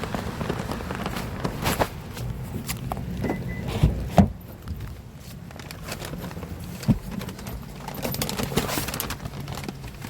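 Footsteps and scattered handling knocks and clicks over a low steady hum, with a louder knock about four seconds in and another about seven seconds in.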